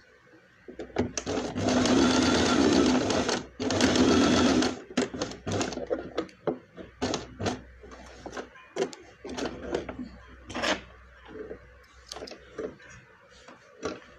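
Electric sewing machine stitching in two short runs with a brief stop between, then a string of separate clicks and brief bursts of only a few stitches at a time.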